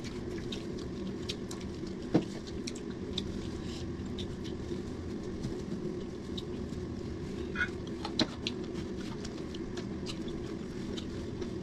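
Eating with the hands: chewing and smacking with many small scattered clicks, and two sharper knocks about two and eight seconds in, over a steady low hum.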